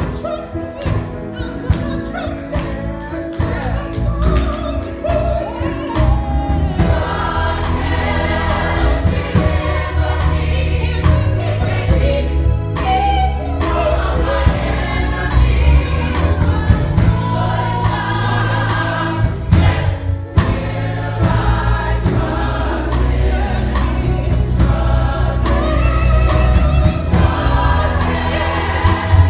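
A gospel choir singing with instrumental accompaniment.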